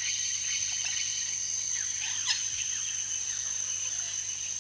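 Tropical forest ambience: a steady high-pitched insect drone with many short, scattered bird calls.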